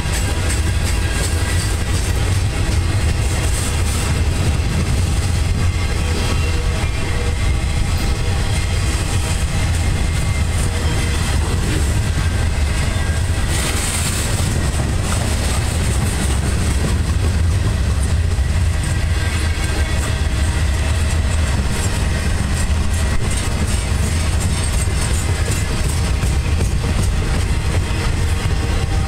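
Freight train cars rolling past close by: a steady heavy rumble of steel wheels on rail, with a brief hiss about halfway through.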